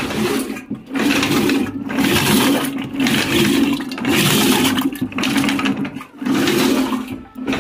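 Yogurt being hand-churned into buttermilk in a rope-pulled churn: the churning stick spins back and forth in the liquid, a rhythmic whirring and sloshing at about one stroke a second. The buttermilk has not yet formed.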